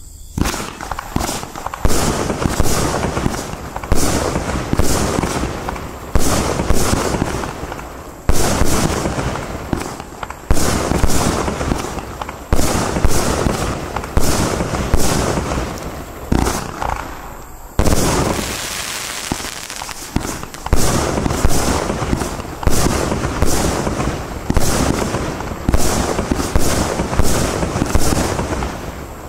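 Iskra Line Bajka SFC42, a 66-shot compound fireworks cake, firing: a steady run of sharp shot bangs about every one to two seconds, each trailed by a fading hiss. About 18 seconds in there is a brief break, then a few seconds of steadier hiss before the shots resume.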